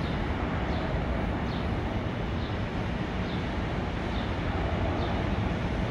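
Airbus A319-114 jet airliner's CFM56 turbofan engines at takeoff thrust as it climbs out just after liftoff, a steady low-heavy engine noise.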